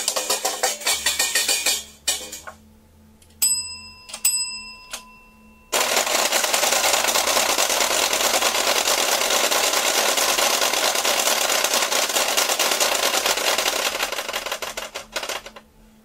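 A metal washboard scraped in fast, dense rhythmic strokes, stopping about two seconds in. A desk call bell mounted on the washboard is then struck a few times and rings. A long stretch of fast, steady washboard scraping follows and fades out near the end.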